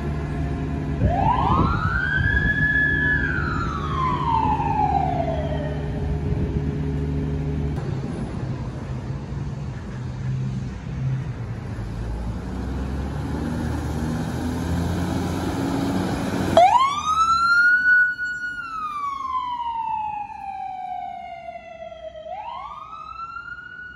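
Emergency vehicle sirens wailing over the rumble of a heavy engine. One wail rises and falls in the first few seconds. About 17 s in a louder wail rises quickly, falls slowly, and starts rising again near the end.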